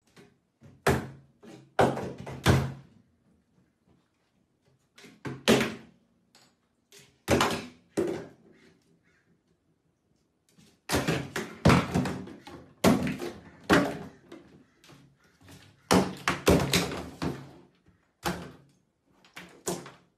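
Plastic shampoo and toiletry bottles being knocked off a bathtub ledge by a small dog, thudding and clattering into the empty tub. A dozen or so separate knocks, several in quick runs, with short quiet gaps between them.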